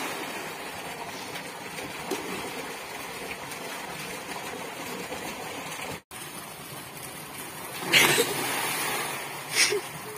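Water splashing in an open well while pipes pour a steady stream into it, with swimmers churning the surface. Near the end come two louder sudden splashes, the first about eight seconds in and trailing off over a second, the second about a second and a half later.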